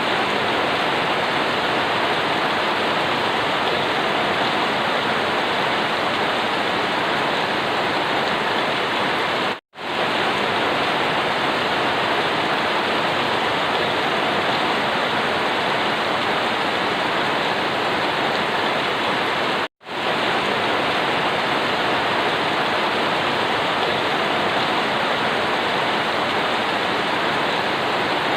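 Steady, even rain noise. It cuts out to silence for a split second twice, about ten seconds apart.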